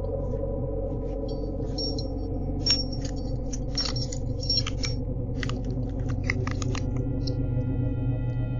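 A bunch of keys jangling, with sharp clicks as keys are tried in a door lock one after another, over a low steady hum. The jangling and clicking stop about seven seconds in.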